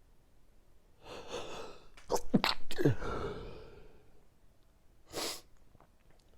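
A person sneezing, one sneeze of an allergy sneezing fit: a gasping in-breath about a second in, then one loud sudden sneeze with a voiced, falling cry that fades out, followed later by a short noisy breath.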